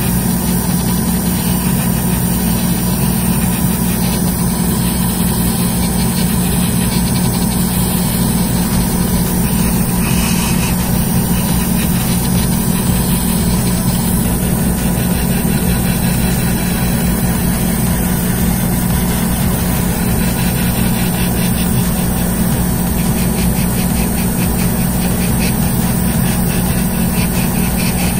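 Steady, unchanging motor hum from airbrushing equipment running, with an even hiss over it.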